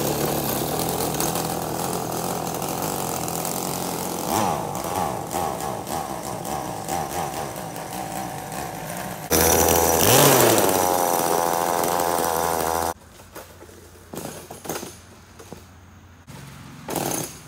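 Homelite 42cc two-stroke chainsaw engine driving a homemade scooter, running hard under load with a buzzing, steady note. About nine seconds in it gets abruptly louder, with a brief rise and fall in pitch, then it cuts off sharply about thirteen seconds in, leaving only a few light knocks.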